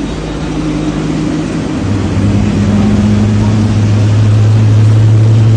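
GE90-115B turbofan engine of a Boeing 777-300ER starting up. It grows louder over the first few seconds, and about two seconds in a steady low hum sets in and holds.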